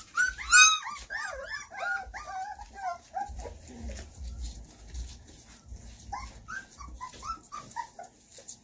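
Young puppies whimpering and squeaking in a rapid string of short, high-pitched cries that rise and fall. The cries come thick for the first three seconds or so, then quieten, and a second run starts about six seconds in.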